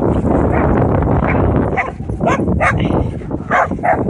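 Dogs barking: about four short, high barks in the second half, over a steady rush of background noise.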